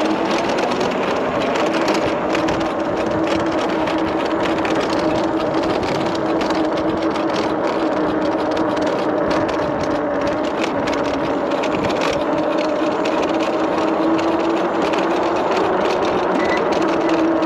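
A 3500 W brushless e-bike motor running on 72 V, whining at a steady pitch while the bike holds speed, with wind rushing over the microphone.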